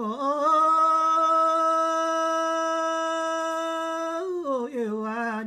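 A man singing a Tang Wang song solo and unaccompanied: the voice rises into one long, steady held note, then falls to a lower, wavering pitch near the end.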